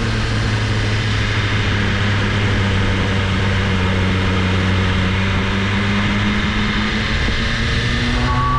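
BMW S1000RR inline-four engine running at a steady low riding speed, with wind and road noise. The engine note dips slightly at first, holds steady, then rises near the end.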